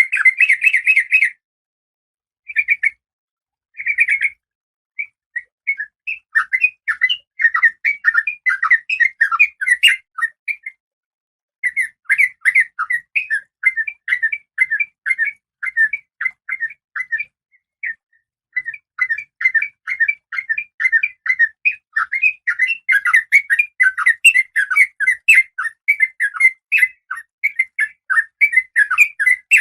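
Female oriental magpie-robin (kacer) calling in breeding condition: rapid runs of short, clear chattering notes. The runs are broken by brief pauses near the start and again about 11 and 18 seconds in.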